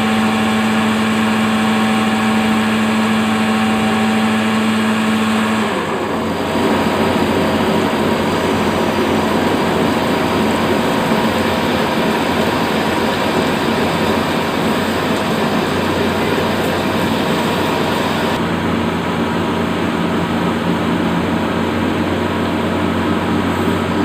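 CNC machine taking a facing cut, running steadily with a constant hum. About six seconds in the hum drops out and a rougher, noisier cutting sound takes over, and a steady hum comes back in under it about eighteen seconds in.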